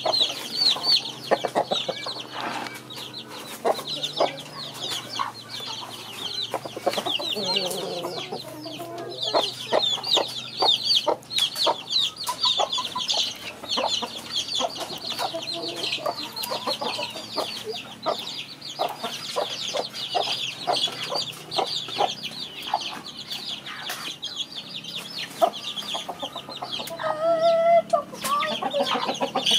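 Rooster clucking now and then over a constant high, rapid chirping.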